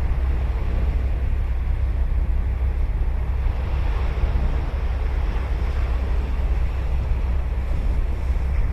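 Ocean surf on a sandy beach, waves breaking and washing up the shore, swelling a little about four seconds in. A steady low rumble of wind buffets the microphone underneath.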